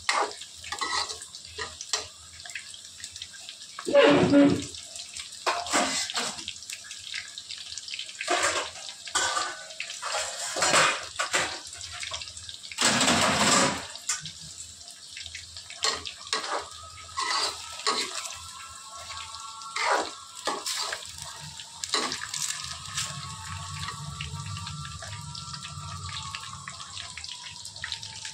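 Chicken pakoda pieces deep-frying in oil in an aluminium kadai, sizzling and crackling, with a slotted spoon scraping and knocking against the pan as the pieces are turned. Louder scrapes come about four seconds in and again near thirteen seconds. The pieces are fully fried and ready to come out.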